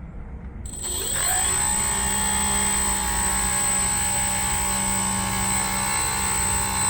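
900kv brushless electric motor spinning a 9.3 x 4 inch 3D-printed propeller on a thrust test stand. About a second in, it spins up with a rising whine to quarter throttle, then runs at a steady pitch with a high thin whine on top.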